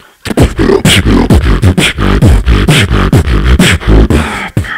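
Solo beatboxing into a handheld microphone, amplified through a PA: fast, steady drum-like beats with crisp hi-hat hisses over a humming vocal bass line that slides in pitch. It starts just after a brief pause.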